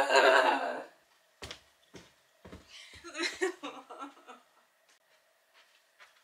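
Television drama soundtrack: a short burst of a voice, then three sharp knocks about half a second apart and quieter vocal sounds, over a faint steady hum.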